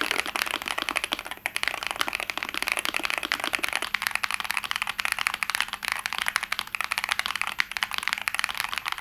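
Fast typing on a Monsgeek M5 mechanical keyboard with tactile Akko Lavender Purple Pro V3 switches, a dense run of key clacks. About four seconds in, the sound turns thinner and higher, losing its lower tone.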